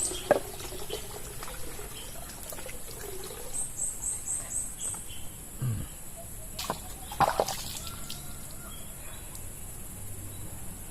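Water splashing and pouring in a few separate splashes as a person bathes with well water. A quick run of about five high chirps comes near the middle.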